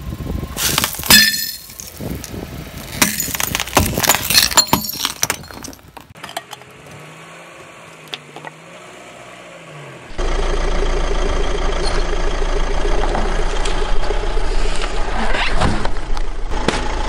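Car tyre rolling over a plate heaped with candy-coated chocolates: a dense run of sharp cracks and crunches as the candies and plate break. After a quieter stretch, a car engine runs steadily through the second half, with a sudden loud sound near the end.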